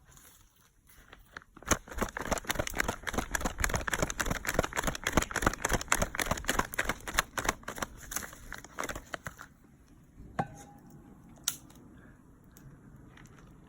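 Bonfire crackling: a dense, irregular run of sharp pops and snaps for about eight seconds, then dying down to a few scattered pops.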